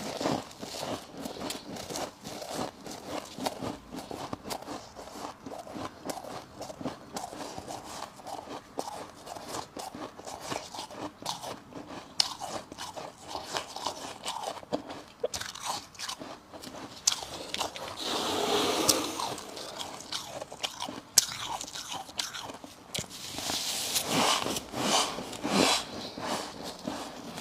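A person biting and chewing refrozen freezer frost, a dense, continuous run of crisp crunching, louder about two-thirds of the way in and again near the end.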